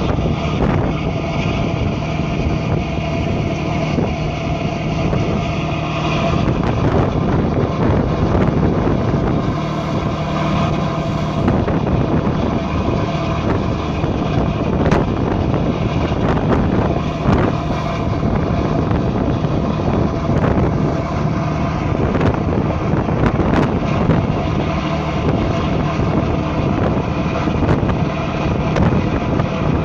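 Passenger boat's engine running with a steady low hum, mixed with wind buffeting the microphone on the open deck.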